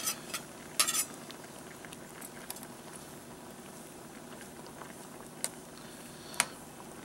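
A spoon stirring pasta in a cooking pot, clinking against the pot's side: a cluster of clinks in the first second, then two single clinks near the end, over the faint steady bubbling of the boiling water.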